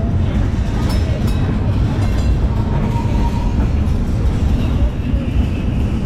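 1906 double-decker tram running along its rails, heard from its roof: a steady low rumble of wheels and running gear, with a few light clicks about a second in.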